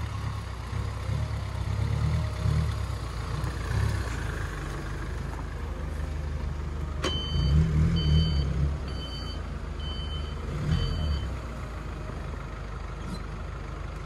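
Mercedes-Benz Sprinter van's engine running at low speed while the van is manoeuvred, with a reversing alarm beeping five times, just under a second apart, starting about halfway through as it backs up.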